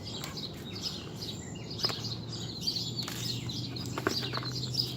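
Birds chirping and twittering in the background, with a couple of sharp clicks, one about two seconds in and one about four seconds in.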